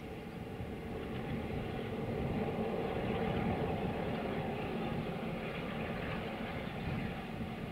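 Class 47 diesel locomotive's Sulzer twelve-cylinder engine working as the locomotive approaches, a steady rumble growing gradually louder.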